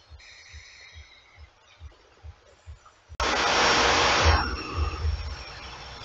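A sudden loud rushing noise, like a whoosh or roar, starts about three seconds in, holds for about a second and then dies down. Under it runs a faint even beat of low thumps, about two a second.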